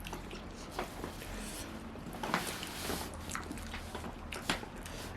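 Close-miked eating sounds of someone chewing seafood: wet chewing with scattered lip smacks and clicks.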